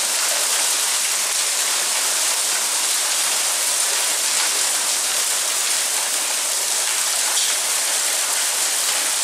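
Hail falling steadily on a tiled courtyard floor: a dense, even hiss of countless small impacts.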